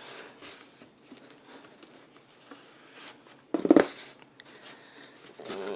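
Knife blade cutting and scraping through cardboard box, a faint scratchy sound, with one short louder sound about three and a half seconds in.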